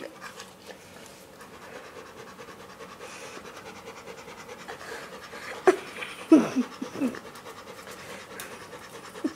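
A dog panting steadily while it sniffs at a gerbil's plastic exercise ball, with light scratches and ticks. A few brief pitched vocal sounds that fall in pitch come about halfway through and again near the end.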